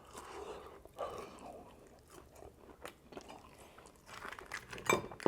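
A person chewing and biting into chicken lollipops (frenched chicken drumsticks), with wet chewing and crunching, and a burst of sharper clicky bites near the end.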